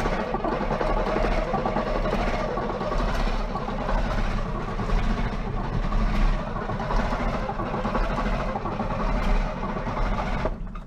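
The diesel engine of a 1957 Volvo TL22 army truck being turned over by its starter motor without firing, a steady mechanical churning that stops suddenly about ten and a half seconds in.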